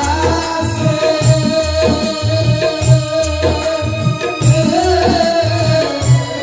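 A man singing a Bengali song in long held notes into a microphone, over an electronic keyboard with a steady, repeating drum beat.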